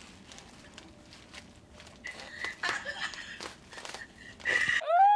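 A man laughing hard almost without voice: faint breathy gasps, then a thin high wheezing squeak, ending in a louder burst of laughter. Near the end the sound cuts abruptly to a loud, drawn-out voice.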